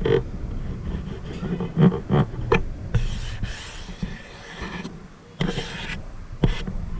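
Handling noise picked up by a GoPro Hero5 Black's built-in microphones: a hand rubbing and shifting grip on the extended monopod grip it is mounted on, making irregular scrapes and several sharp clicks with a low rumble underneath. The camera's very sensitive mics carry this handling noise through the pole.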